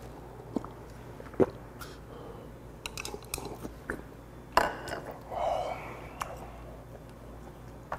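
A person eating at the table: sipping broth from a bowl and chewing, with several sharp clicks of chopsticks and bowl against tableware.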